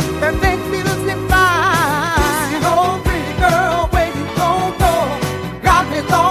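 Pop song with a singer's voice holding wavering notes over a steady drum beat.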